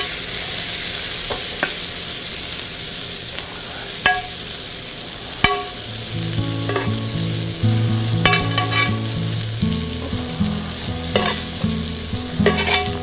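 Butter and curry spices sizzling in a nonstick frying pan just taken off the heat, the hiss easing off, while metal tongs click against the pan as pan-roasted cauliflower florets are lifted out.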